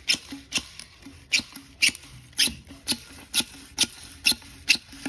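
Toy submachine gun giving a steady run of sharp clicks, about two a second, over a faint low hum.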